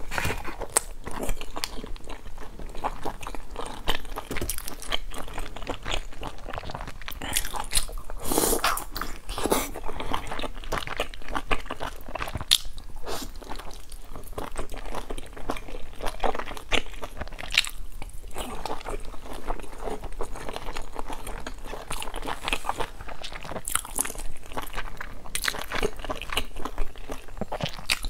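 Close-miked eating of pan-fried dumplings: biting and chewing through their crisp browned skins, a dense, steady stream of small crunches and crackles.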